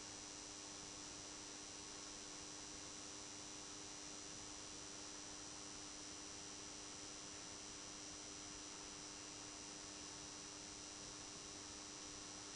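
Faint, steady electrical mains hum from a Tesla SHC 400 W high-pressure sodium lamp running on its ballast, over a constant hiss.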